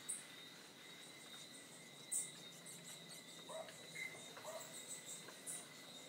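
Wild birds calling: a few short, very high chirps, and a couple of lower sliding calls around the middle. A thin, steady high whine runs underneath.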